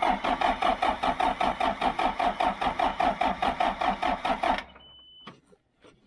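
John Deere 310 backhoe's diesel engine cranking on the starter, with a rhythmic chug of about five beats a second, without firing. The cranking stops abruptly about four and a half seconds in, followed by a faint click. The engine is being jump-started off a weak battery and is not catching.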